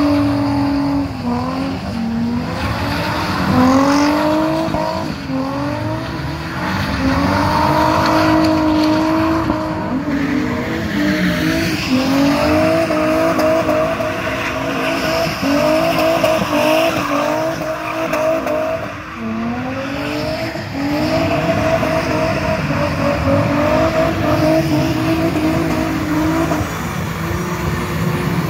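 Drift car engines revving hard, the revs sweeping up and down, with a run of quick repeated throttle blips through the middle, while the tyres squeal as the cars slide.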